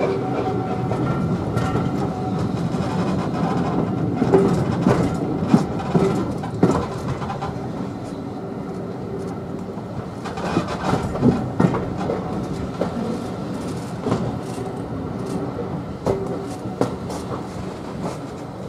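Railway carriage heard from inside while running: the wheels clatter over rail joints and pointwork, with scattered clanks and a few brief squeals. The rolling noise fades gradually as the train slows.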